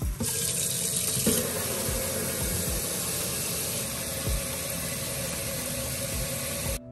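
Kitchen faucet running into a speckled enamelware pot in a stainless steel sink, a steady stream of water splashing as the pot fills. The sound cuts off sharply near the end.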